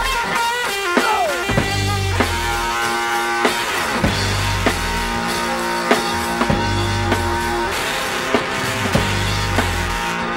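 Instrumental stretch of heavy rock from an electric guitar, bass guitar and drums trio. The electric guitar holds sustained notes over bass and a steady drum beat, with a note sliding downward about a second in.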